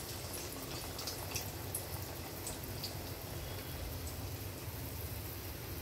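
A disc of adhirasam (sweet rice-flour dough) deep-frying in hot oil in a steel kadai as it puffs up: a steady sizzle and bubbling, with scattered small crackles.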